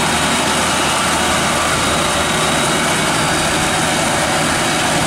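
Kubota engine of a homemade crawler tiller running steadily and loud under load as the machine drives along.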